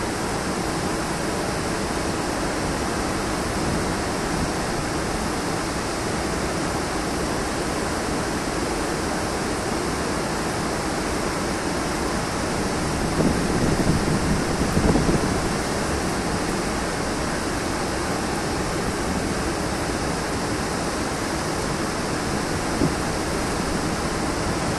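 Heavy rushing water, a steady roar of flood flow, swelling briefly about halfway through.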